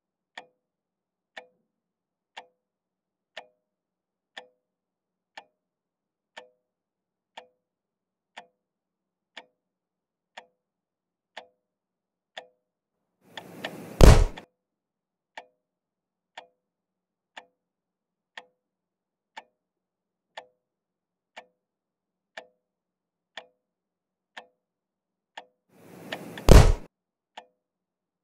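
A clock ticking steadily, once a second. About fourteen seconds in, and again near the end, a short swell of noise builds and ends in a loud bang.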